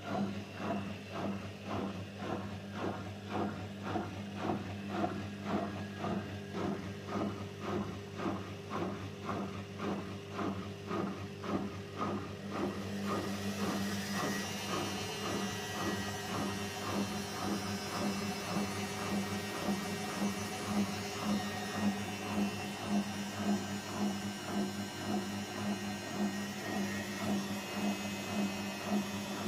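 Zanussi FL984CN washing machine running its 40° coloureds program: a steady electrical hum with a regular pulsing two or three times a second. About halfway through, a hiss joins in and stays.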